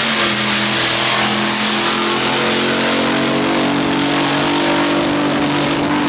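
Racing engine at full throttle, loud and steady. Its note drops as it begins, then climbs slowly.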